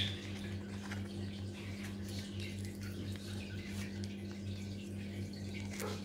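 African Grey parrot's beak gnawing and nibbling birch bark, a run of faint, irregular small clicks and crackles. Underneath is a steady low hum.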